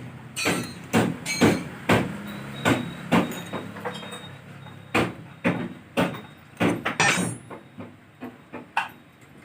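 Irregular knocks and clatter of engine parts being handled and struck during a teardown, about one or two a second and thinning out near the end, with a low steady hum under the first few seconds.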